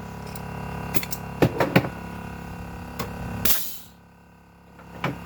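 Onboard air compressor running with a steady hum while the air hose fittings are handled, giving several sharp clicks. About three and a half seconds in comes a short burst of hissing air, the hum drops away for about a second, then it returns with a click.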